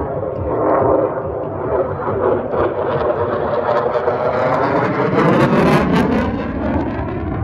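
F-16 fighter jet flying past overhead: loud, steady jet engine noise with a sweeping, phasing sound as it goes by, and a sharper hiss about five to six seconds in.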